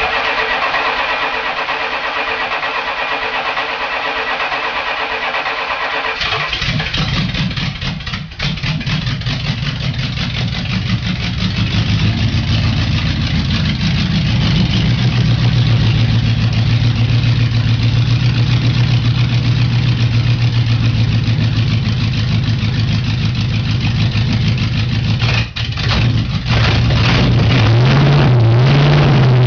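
1978 Aston Martin V8 engine with open headers and no exhaust pipes or silencers, started after months of standing: the starter cranks for about six seconds, then the engine catches and runs loud and raw, settling into a steady idle. The note dips briefly near the end, then picks up again.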